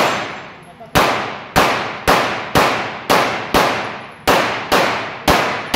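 A string of about ten pistol shots fired from a handgun, roughly two a second, each sharp crack trailing off in a ringing echo.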